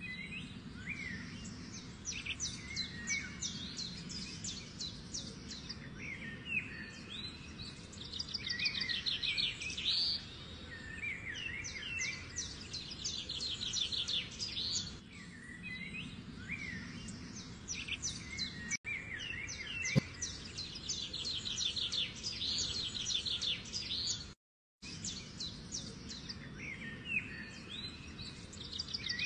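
Birds chirping and singing rapid trills, the same kind of phrases recurring every seven or eight seconds over a low steady hiss. The sound cuts out for a moment near the end.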